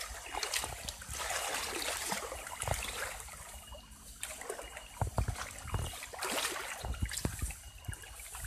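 Shallow, muddy water splashing and sloshing as hands grope under the surface and legs wade through it, over the trickle of a small flowing stream, with irregular splashes throughout.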